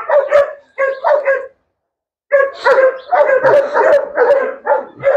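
A dog barking rapidly and repeatedly, about three barks a second, with a short break in the middle.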